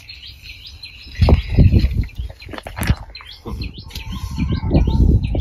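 Small birds chirping repeatedly throughout. Over them, loud low rumbling and rustling comes a little over a second in and again through the second half, as a storm-tilted potted plant is handled and pulled upright.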